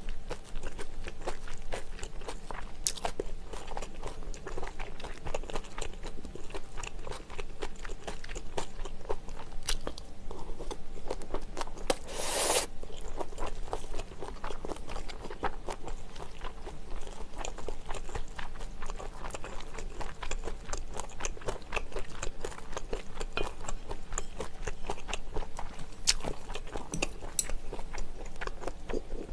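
Close-miked chewing and crunching of egg fried rice and shredded pork in sauce, with many small sharp clicks of spoon and chopsticks on the dishes. About twelve seconds in there is one louder, brief rasp.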